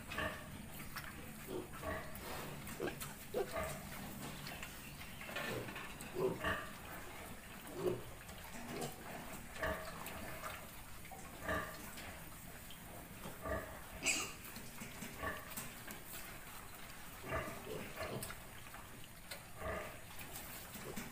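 Pigs grunting: a sow and her suckling piglets, short grunts coming irregularly every second or so, with one sharper, higher call about two-thirds of the way through.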